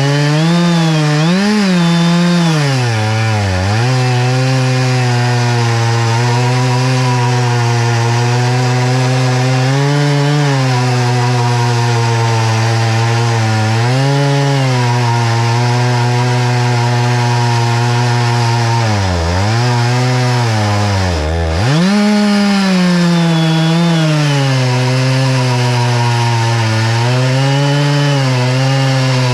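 Chainsaw on an Alaskan chainsaw mill ripping a board from an oak log, engine held at high revs. The engine note dips and recovers a few times as the cut loads it, most deeply about 21 seconds in.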